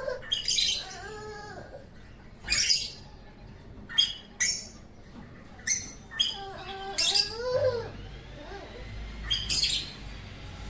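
Pet cockatiel and African lovebirds chirping: sharp high chirps every second or so, mixed with a few lower whistled calls that bend up and down in pitch.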